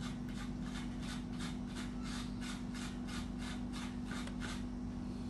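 A child's long hair being brushed: a rhythmic rubbing scrape of about four strokes a second that stops near the end.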